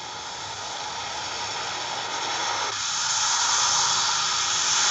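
Rushing noise of a car driving by, swelling over the first three seconds and then holding steady. It comes from a film soundtrack re-recorded off a room's speakers.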